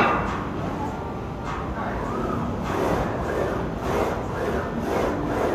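Plate-loaded leg press worked through repetitions: a sharp clank at the very start, then rasping, sliding noise rising and falling about once a second as the loaded sled is pushed up and lowered.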